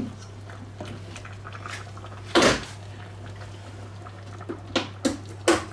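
Wooden spatula and a china plate knocking against an enamelled pot as cabbage rolls are pushed and scraped in: one louder knock about two and a half seconds in, then a few sharp taps near the end. A steady low hum runs underneath.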